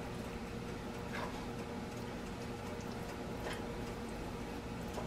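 Wooden spatula stirring thick chili in a small metal saucepan: soft stirring with a few faint taps of the spatula against the pot, over a low steady hum.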